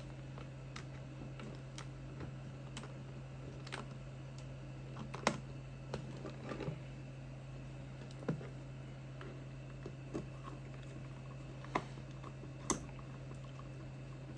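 Scattered light clicks and taps of small screws, a screwdriver and plastic housing parts being handled during reassembly of a portable Bluetooth speaker, over a steady low hum.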